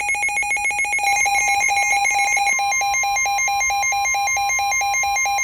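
Weather alert radios sounding a fast pulsing electronic alarm, joined about a second in by the steady 1050 Hz NOAA Weather Radio warning alarm tone that announces a new severe thunderstorm warning.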